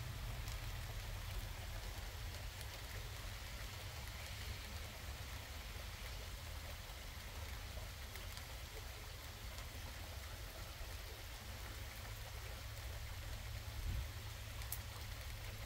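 Light rain falling steadily, an even hiss, over a continuous low rumble. A short low thump comes about fourteen seconds in.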